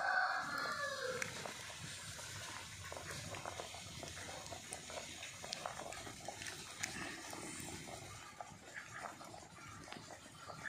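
A big pot of sweet potatoes boiling hard over a wood fire: steady bubbling hiss with frequent small crackles from the burning wood. A short pitched call sounds in the first second.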